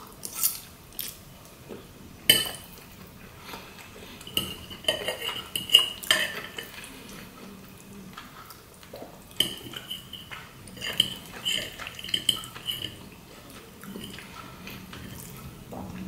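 Metal fork clinking and scraping against a ceramic plate while twirling spaghetti in sauce, with sharp clicks. Twice, about five seconds in and again from about ten seconds in, the fork drags with a high squeal.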